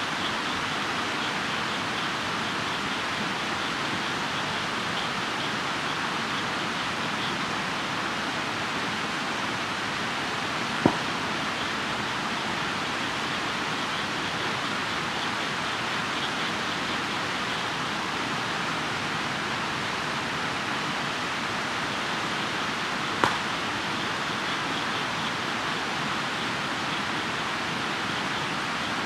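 Campfire burning with a steady hiss, its wood giving two sharp pops, about eleven seconds and twenty-three seconds in.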